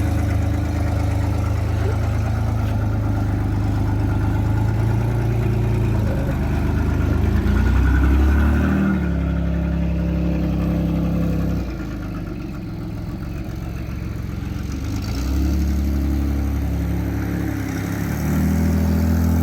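1991 Camaro's 3.1-litre V6 running as the car is driven, now firing after two bad fuel injectors were replaced. The revs rise about a third of the way in, fall back near the middle, and climb again twice toward the end.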